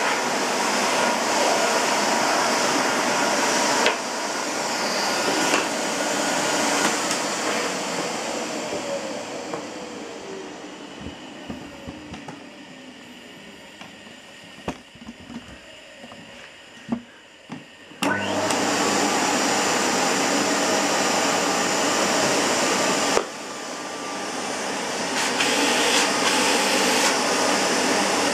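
Hoover Sensotronic System 2 vacuum cleaner running. Its motor noise sinks gradually to a low level over several seconds, with a few knocks, then jumps suddenly back to full power about 18 seconds in. Later it drops again and builds back up.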